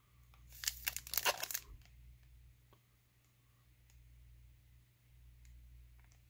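Foil trading-card pack wrapper being torn open along its seam and crinkled, a short burst of tearing and crinkling about a second in, then faint rustles.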